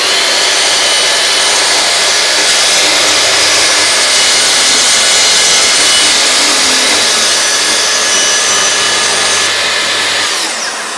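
Festool TS55 plunge track saw running steadily as it is pushed through a cut along its guide rail, together with the steady noise of the dust extractor on its hose. About ten seconds in, the saw's motor winds down with a falling whine, and the extractor keeps running.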